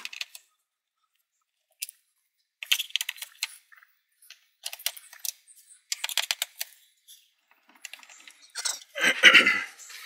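Small metal clicks and clinks of a screwdriver turning out T20 Torx screws from a robotic mower's plastic top cover, coming in several short clusters, with a louder clatter near the end.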